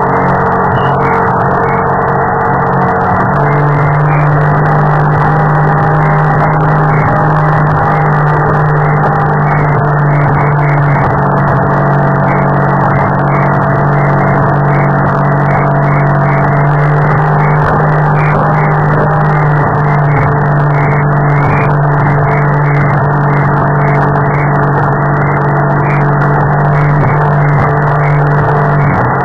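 Radio-controlled model boat's engine running steadily at high speed, heard from a camera on its deck. The engine steps up in pitch about three seconds in, holds, and drops back near the end.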